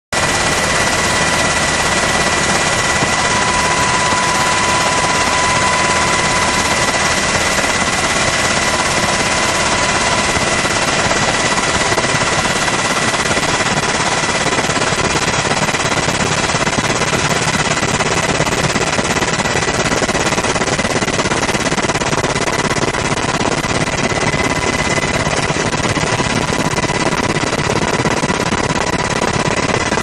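Helicopter running steadily, heard from aboard: a loud, unbroken rush of rotor and engine noise with a steady high whine.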